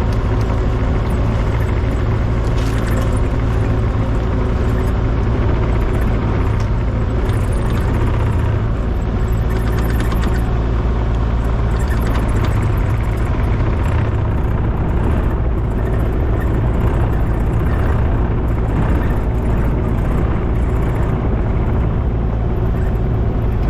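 An engine running steadily at a constant speed, a loud, even low drone.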